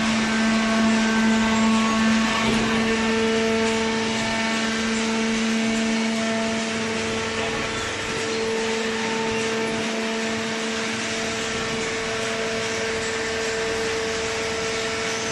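Hydraulic cardboard baler's power unit, an electric motor and hydraulic pump, running steadily with a held humming tone as it drives the ram.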